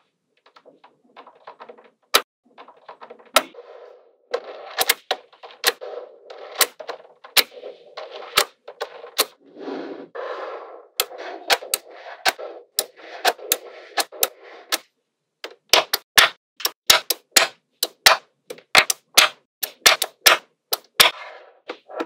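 Small magnetic balls clicking and clattering as strands of them are snapped onto a block of balls, with a rattle of balls rolling between the sharp snaps. In the last third, a run of separate sharp clicks, about three a second, as balls are set in place one after another.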